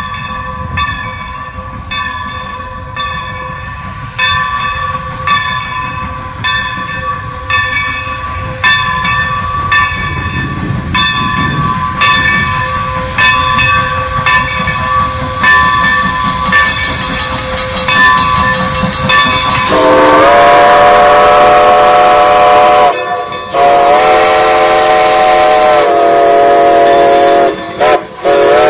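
Steam locomotive No. 90, a Baldwin 2-10-0, approaching with its bell ringing steadily over the rumble of the train. About twenty seconds in, its steam whistle sounds loud, in two long blasts, a short toot and another long blast: the grade-crossing signal.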